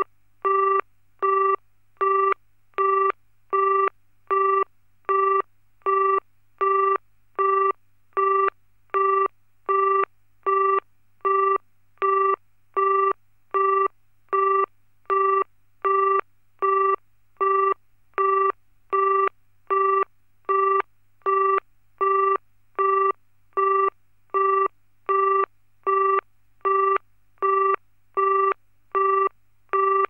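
British BT telephone engaged (busy) tone: a single steady tone beeping on and off in even, equal beats, about four beeps every three seconds. This signals that the called line is busy.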